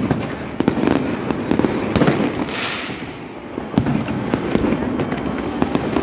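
Aerial fireworks going off: a rapid run of bangs and crackling pops. A hissing rush comes about halfway through, then a short lull, then a sharp bang and more pops.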